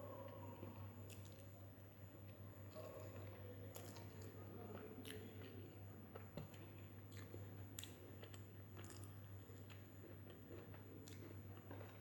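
Faint, close-miked chewing and wet mouth sounds of someone eating chicken dum biryani, with scattered soft clicks over a steady low hum.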